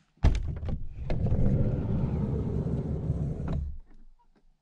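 A van's sliding side door being opened: a sharp click of the latch, then about three seconds of low rumbling as the door is worked open, ending in a knock.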